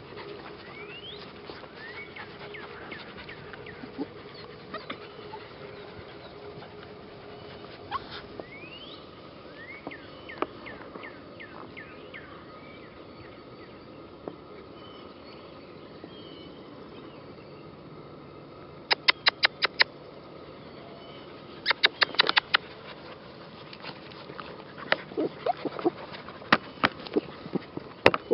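Puppies playing in grass. The first half holds faint, short rising high whines. About two-thirds of the way in come two quick runs of loud, sharp, very short sounds, each about six to eight in under a second, and more scattered ones near the end.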